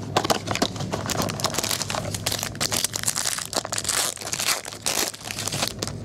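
Foil wrapper of a trading-card pack crinkling and tearing as it is opened and the cards slid out, along with the handling of the cardboard hobby box.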